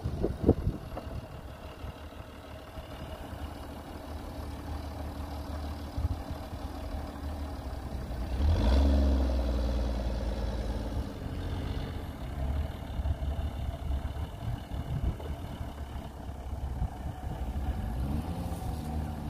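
An off-road 4x4's engine running under load with a steady low rumble, revved up about eight seconds in and then easing off over a few seconds, with another short rise in revs near the end.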